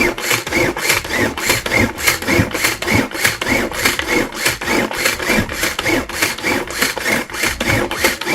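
Food chopper chopping whole jute (ewedu) leaves, a steady rhythmic churning of about four to five strokes a second.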